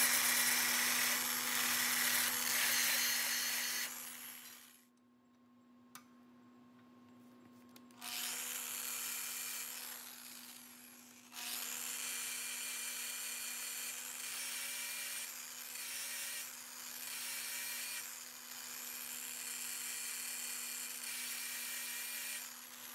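Fein WPO 14-25 E rotary trim sander with a drum sanding sleeve running against a ground weld on 304 stainless steel square tubing, blending the weld into the surrounding metal: a loud high grinding over a steady motor hum. The grinding drops away about four seconds in, leaving only the motor hum. It comes back about eight seconds in, dips briefly near ten seconds, then runs on to near the end.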